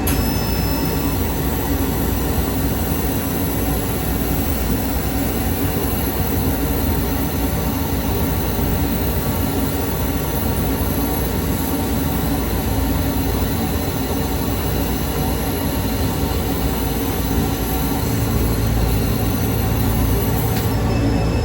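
Workshop equipment for laser foam cutting running with a loud, steady mechanical noise and a low hum that joins about eighteen seconds in.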